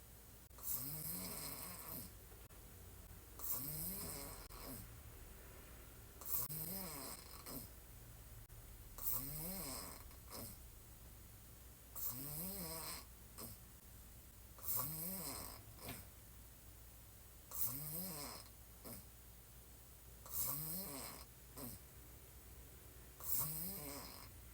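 A woman snoring hard while lying on her back, mouth open: nine snores at an even pace, one about every three seconds, each a pitched snore that rises then falls with a breathy hiss.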